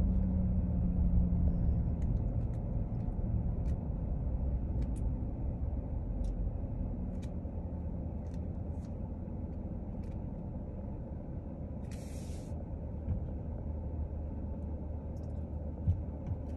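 Vehicle engine and low rumble heard from inside the cabin while slowing and waiting at a gate, with a few faint clicks and a short hiss about twelve seconds in.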